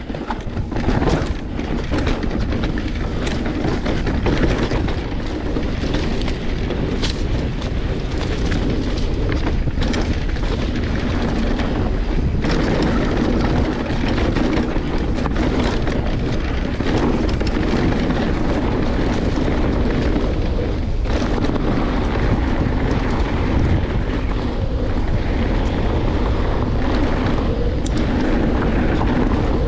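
Mountain bike descending a dirt trail at speed: wind buffeting a helmet- or bike-mounted action camera's microphone over the rush of tyres on dirt, with frequent clicks and knocks from the bike rattling over roots and rocks.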